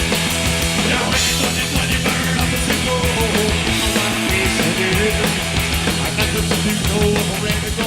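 Loud rock music with distorted guitar and a driving drum beat.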